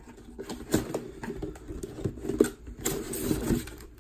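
Camera-box packaging being handled: light knocks and taps with cardboard and plastic rustling, and a longer crinkly rustle about three seconds in.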